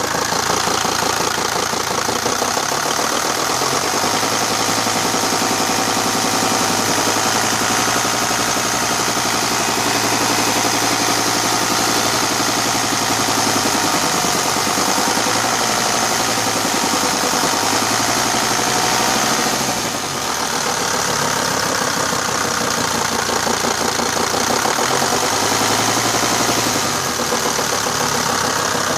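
Mercedes-Benz OM602 five-cylinder diesel running steadily at idle with a dull knock from the crankshaft, the sign of crankshaft play in the main bearings. The sound dips briefly about two-thirds of the way through.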